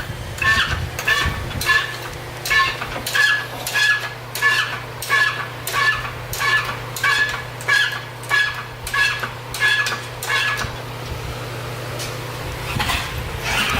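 Engine hoist squeaking in an even rhythm, about two squeaks a second, for some ten seconds while the engine is lifted out of the Subaru WRX, with a steady low hum underneath.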